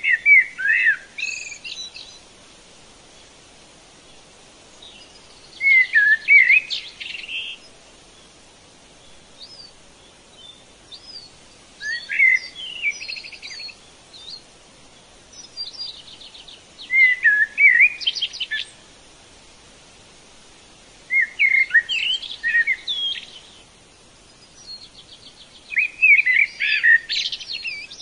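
A songbird singing the same phrase over and over: six phrases of about two seconds, each of quick warbled notes with a rapid trill, repeated about every five seconds over a faint steady hiss.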